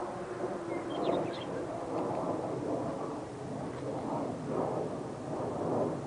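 Whelen Vortex R4 electronic warning siren's steady tone dying away just after the start, leaving gusts of wind rumbling on the microphone. A few brief bird chirps come about a second in.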